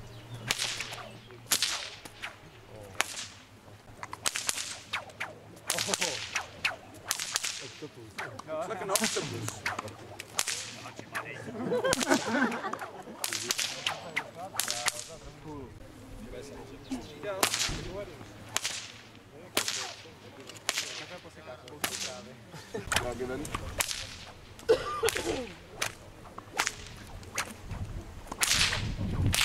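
A bullwhip cracked over and over in a continuous routine, sharp cracks coming about once or twice a second.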